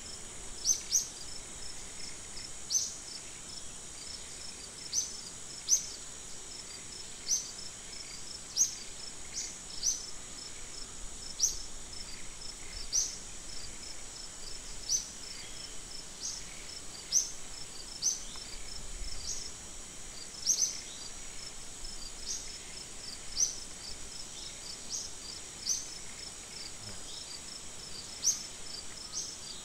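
Forest insects droning steadily at a high pitch, with a short, sharp, high chirp repeating every one to two seconds on top.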